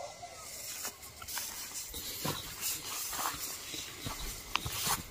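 Tall dry grass rustling and swishing as people push through it on foot, with a few sharp snaps of stalks near the end.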